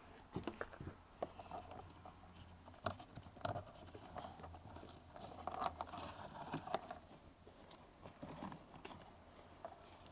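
A BMW X5 cabin air filter cartridge and its plastic housing being handled and pulled out: irregular plastic clicks, knocks and rustling scrapes.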